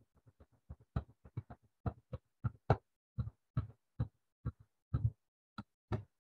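A run of irregular sharp taps or clicks close to the microphone, about three or four a second and uneven in loudness, each with a low thud. They stop near the end.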